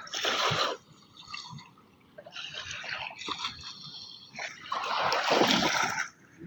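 River water splashing and lapping at the bank in uneven surges, the loudest about five seconds in.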